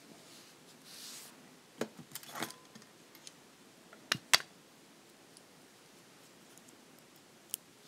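Small metal jewellery findings, a silver jump ring and ear wire, clicking and lightly jingling as they are handled between the fingers: a few scattered sharp ticks, the sharpest a little past four seconds in.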